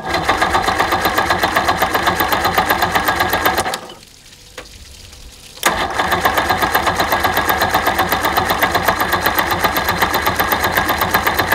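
Two-stroke outboard motor being cranked over by its electric starter in a cold-start attempt without starter fluid. It turns over rhythmically but does not catch, in two long cranking runs with a short pause between them about four seconds in.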